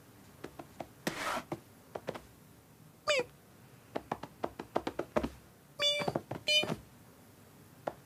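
Cartoon cat sound effects: light scattered taps and scuffles, a short squeaky mew that dips and rises about three seconds in, and two short mews close together about six seconds in.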